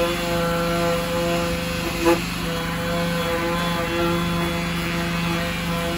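Corded random orbital sander running at a steady speed while sanding a yellowed plastic headlight lens, with one brief knock about two seconds in.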